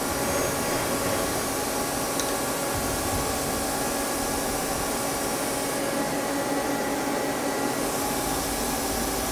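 Steady hum of a powered-up Mazak CNC lathe standing with its spindle stopped, an even noise with several faint steady tones, and a faint tick about two seconds in.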